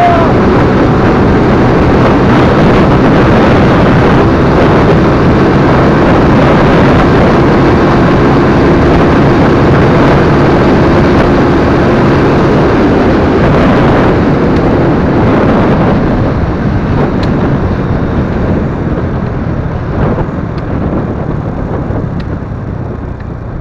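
Honda Wave 125 single-cylinder motorcycle held wide open at about 150 km/h, its engine under a dense rush of wind over the microphone. The noise holds steady, then eases from about fifteen seconds in as the throttle comes off and the bike slows.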